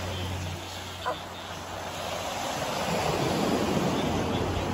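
Surf washing onto a sandy beach, with wind noise on the microphone. A brief high sound stands out about a second in.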